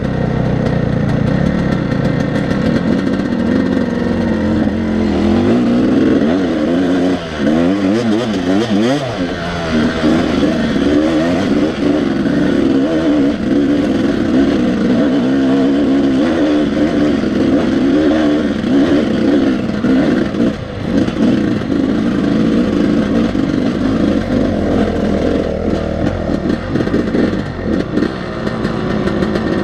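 Yamaha two-stroke dirt bike engine running under the rider while riding a rough, rutted trail, the revs rising and falling as the throttle is worked, with a quick run of up-and-down revving about eight seconds in.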